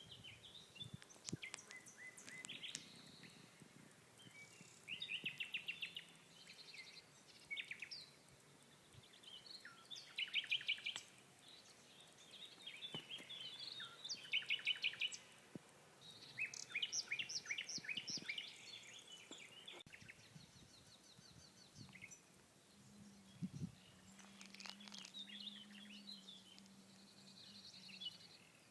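Songbirds singing in the open, a string of short, high-pitched phrases made of rapid trills and chirps that come every couple of seconds.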